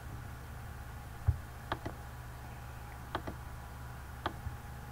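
Computer mouse clicking: about six short, scattered single clicks over a steady low hum, with one low thump about a second in.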